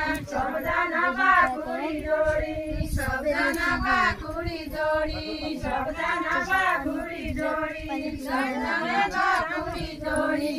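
A group of women singing a Deuda folk song together, unaccompanied, as they dance in a circle.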